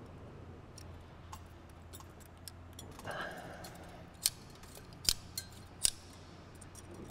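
Safety wire being handled and threaded by hand on an aircraft engine's oil filter: a soft rustle about three seconds in, then a few short, sharp metallic clicks, over a faint steady low hum.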